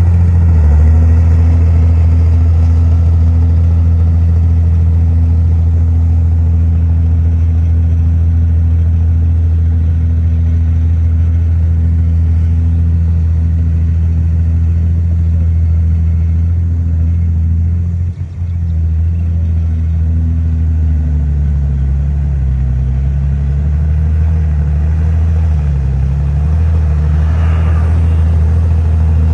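Heavy diesel engine of earthmoving machinery running steadily. After a brief drop in level about 18 s in, its pitch wavers up and down as the load changes.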